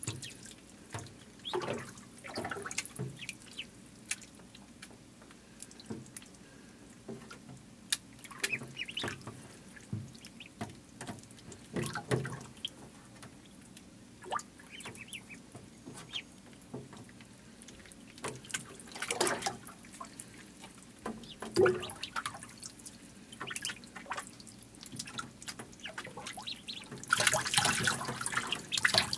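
Ducklings paddling and splashing in shallow water in a plastic tub: irregular small splashes and drips, busiest near the end.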